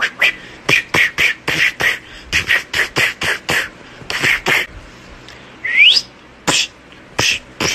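Rapid short percussive mouth sounds in beatbox style, about three or four a second in runs, with one quick rising whistle about six seconds in.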